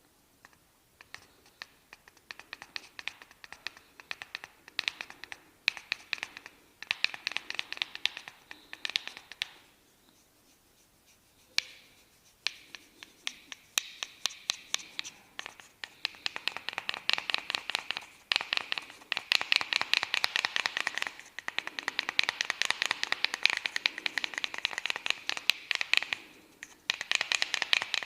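Fingers working through hair at the scalp in a barber's 'hair cracking' massage, giving dense runs of fast, sharp crackles and scratches. They pause briefly about ten seconds in, then come back denser and louder.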